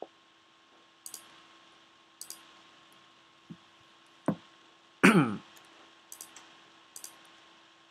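Computer mouse clicks, in quick press-and-release pairs about four times. A low knock comes a little past four seconds in, and a louder brief sound falling in pitch follows about five seconds in, all over a faint steady hum.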